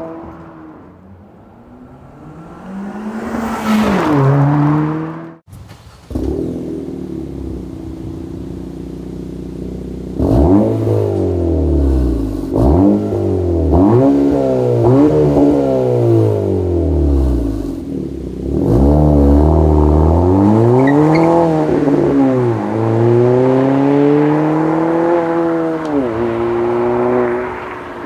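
A 1.5-litre turbocharged four-cylinder car engine idling and being revved through aftermarket cat-back exhausts. Near the start it runs through an A'PEXi N1-X system with one short rev. After an abrupt cut it runs through an MBRP 3-inch dual-rear-exit cat-back: a steady idle, then a run of quick throttle blips, then longer revs that rise and fall.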